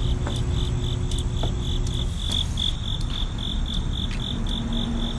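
Cricket chirping in a steady, even rhythm of short high chirps, about four a second, over a low background rumble.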